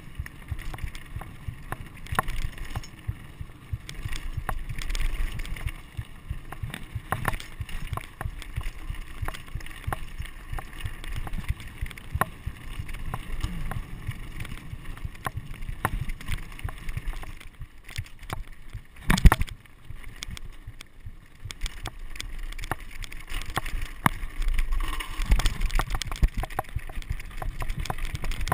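Mountain bike rolling over rocky dirt singletrack: tyre crunch and frequent clicks and rattles as the bike bounces over stones, over a low wind rumble on the microphone. One loud knock about two-thirds of the way through.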